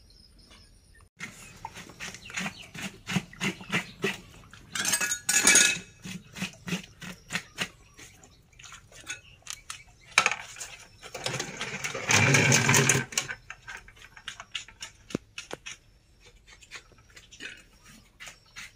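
Knife blade scraping the hair off a dead piglet's skin: a fast series of short, rasping strokes. There are two louder stretches of rushing noise, about five seconds in and again from about ten to thirteen seconds.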